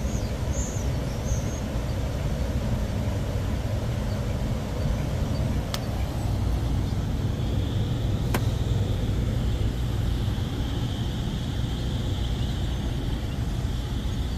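Outdoor air-conditioner condenser running steadily, the compressor hum and condenser fan going after its tripped pressure switch was reset. Two sharp clicks about six and eight seconds in.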